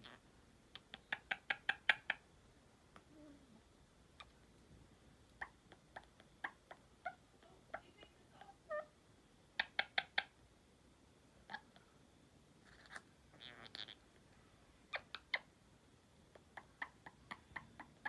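A pet bird making quick runs of sharp clicks and short chirps, with a brief raspy chatter about thirteen seconds in.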